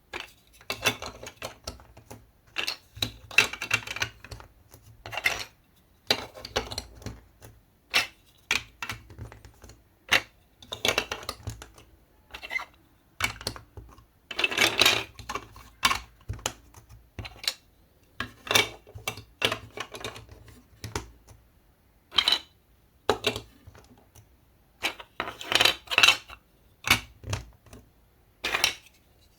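Hard little clicks and clatters from a marble run, coming in short irregular bursts with brief pauses between them.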